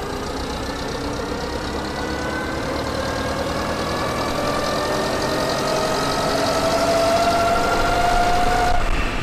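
1928 SOS QL bus's 4¼-litre side-valve engine and four-speed crash gearbox pulling the bus along, with a whine that rises steadily in pitch and grows louder as it gathers speed. The sound cuts off near the end.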